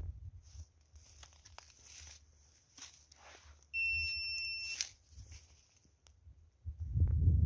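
Crunching footsteps and crackles in dry grass, with a single high electronic beep lasting about a second midway. A low rumble comes in near the end and is the loudest part.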